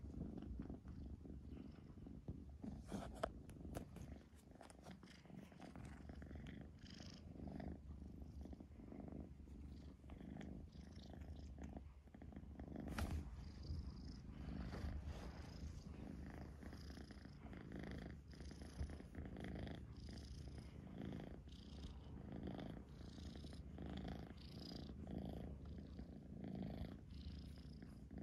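Kitten purring steadily close by, the purr swelling and fading with each breath. A few brief clicks about three seconds in and again near the middle.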